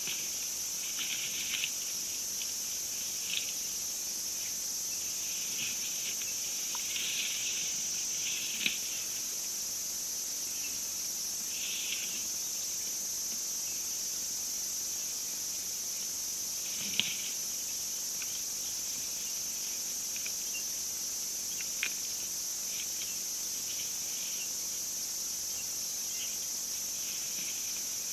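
Steady high-pitched chorus of insects, with short faint chirps scattered through it and a few soft clicks.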